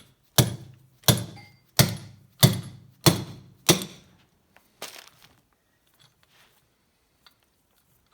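Hammer tapping a piston pin through the piston and the connecting rod's small-end needle bearing: six sharp metallic blows about two-thirds of a second apart, then a lighter one, each ringing briefly. Light taps with a bit of handling follow.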